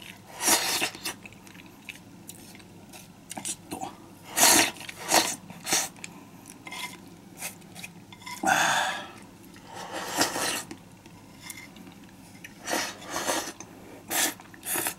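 Someone eating from a hot pot: utensils clicking and knocking irregularly against the pot and bowl, with chewing, and a couple of longer noisy sounds about two-thirds of the way through.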